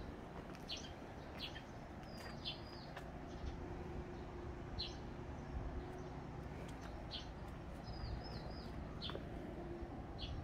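A small bird chirping: short, high calls about one every second or so, some with a quick falling hook. Under them is a low, steady background rumble.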